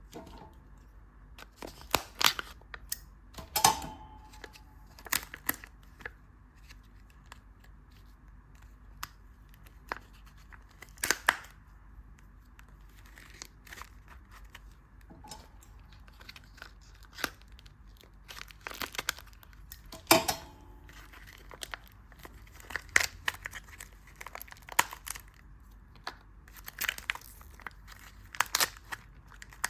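Candy wrapper being torn open and crinkled by hand: scattered short, sharp crackles and rustles with pauses between them.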